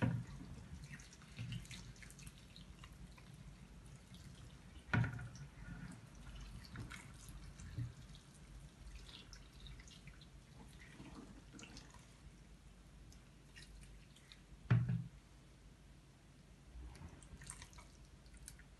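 Hot water trickling and dripping from a jug into a plastic bowl of torn newspaper pieces, soaking the paper, with a few knocks; the loudest come about five and about fifteen seconds in.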